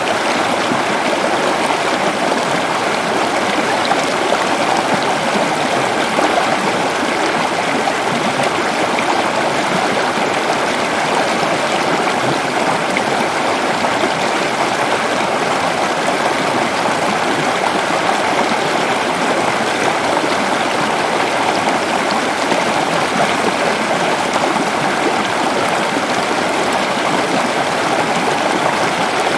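Waterfall rushing steadily, a dense, even water noise with no breaks.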